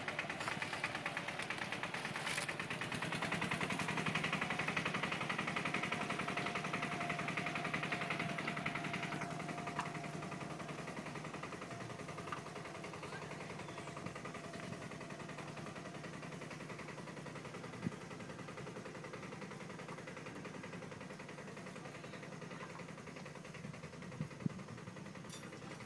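Small farm tractor's engine running as it tows a loaded trailer, a fast even beat that fades gradually as the tractor pulls away.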